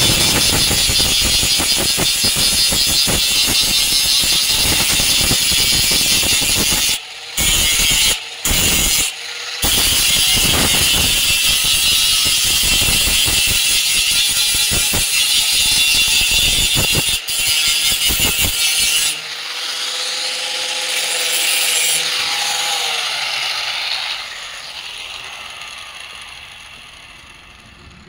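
Handheld electric angle grinder grinding the joined seam of a steel sawmill bandsaw blade flush, a loud steady grinding with three brief gaps about seven to ten seconds in. After about nineteen seconds it comes off the steel and winds down, its whine fading away.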